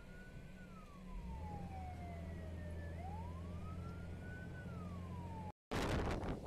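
Emergency-vehicle siren wailing, one tone falling slowly then rising again over a few seconds, over the steady low hum of a vehicle engine. After a short dropout near the end, louder wind buffeting the microphone takes over.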